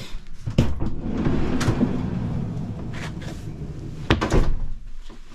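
A door being opened and shut: a series of knocks over a low rolling rumble, with the loudest knocks about four seconds in.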